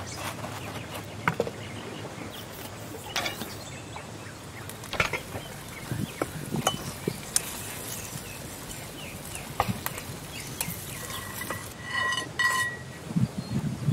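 Scattered light clicks and knocks, then two ringing metal clinks near the end: metal tongs striking a cast-iron Dutch oven lid while clearing hot coals from it.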